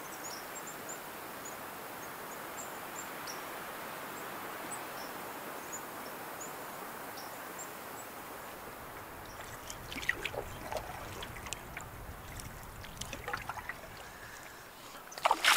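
Steady outdoor hiss of moving air or water with faint high chirps. From about ten seconds in, small water splashes and light knocks on a canoe, then a louder splash just before the end.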